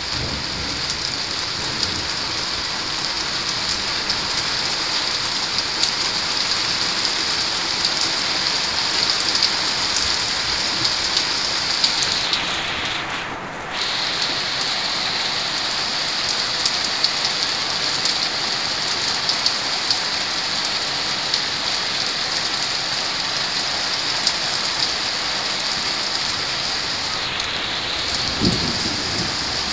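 Heavy thunderstorm rain pouring down steadily: a constant hiss, with individual drops ticking sharply on nearby wet surfaces.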